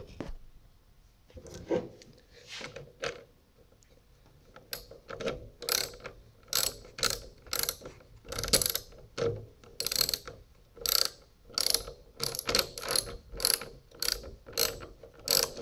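Hand socket ratchet clicking as a bolt is turned, in short back-and-forth strokes: a few at first, then a steady run of about two a second from about five seconds in.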